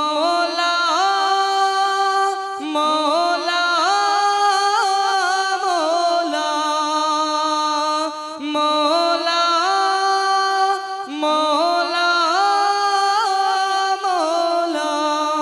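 Wordless vocal melody in a Bangla Islamic song (gojol): long held notes that step up and down with small ornaments, in phrases of about three seconds each.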